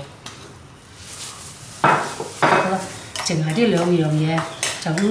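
Metal spoon stirring and scraping seasoned minced fatty pork around a stainless steel bowl, starting with a sharp clatter about two seconds in.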